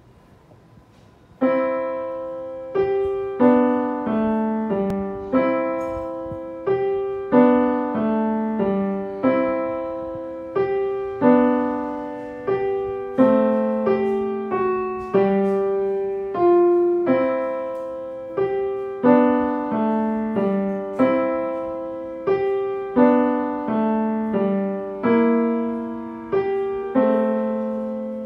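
A piano played solo by a child, a short practice piece in the middle register at a steady, moderate tempo. Runs of shorter notes are punctuated by a strongly struck note about every two seconds, beginning about a second and a half in.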